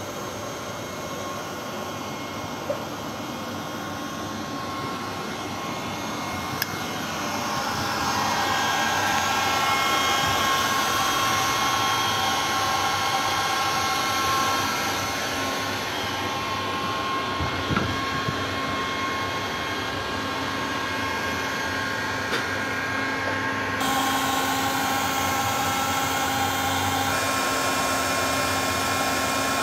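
Steady industrial machinery noise: a rushing hum with several steady whining tones over it, growing louder about eight seconds in.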